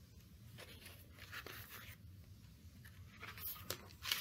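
Faint paper rustling and handling as a picture book's page is turned, a few soft rustles that grow louder near the end.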